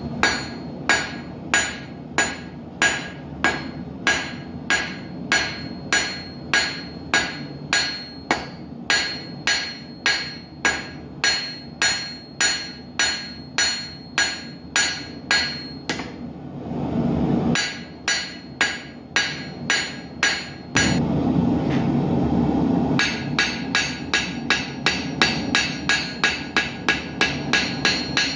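Hand hammer striking hot steel on an anvil to forge a bodkin arrowhead, each blow ringing. The blows come steadily about two a second, stop for about a second and a half, then resume, and after a second pause turn to quicker, lighter taps about four a second. A steady rushing noise from the gas forge swells up in the pauses.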